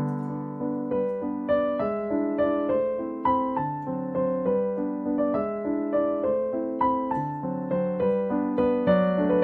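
Background piano music: a melody of single struck notes, a few each second, over lower notes.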